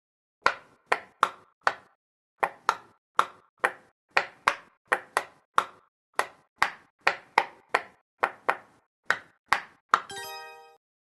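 Silicone bubbles of a pop-it fidget toy popping one at a time: about two dozen crisp pops, two to three a second, separated by silence. Near the end a brief ringing tone with several pitches sounds.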